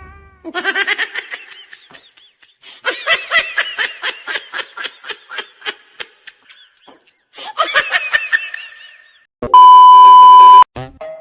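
Laughter in three stretches of quick, high-pitched 'ha-ha' pulses, then near the end a loud, steady one-pitch beep lasting about a second.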